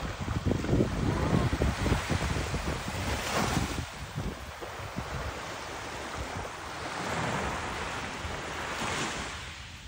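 Small waves breaking and washing up a sandy shore, the surf hiss swelling about three seconds in and again near the end. Wind rumbles on the microphone, mostly in the first few seconds.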